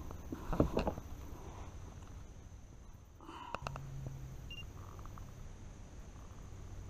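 Light clicks, knocks and scuffles of a small bass being handled and laid on a plastic fish-measuring board in a kayak. A few sharp clicks come near the start and a louder scuffle about halfway through.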